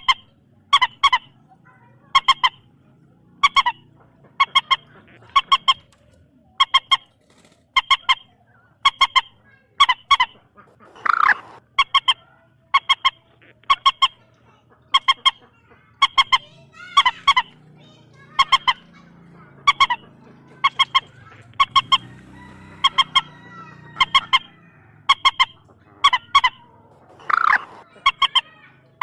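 Common moorhen calling: a short two-note honking call repeated steadily about once a second, with two louder, lower calls about 11 seconds and 27 seconds in.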